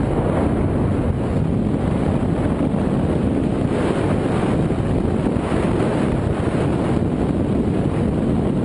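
Wind rushing over the microphone of a camera mounted on a hang glider in flight: a loud, steady roar of airflow buffeting the mic.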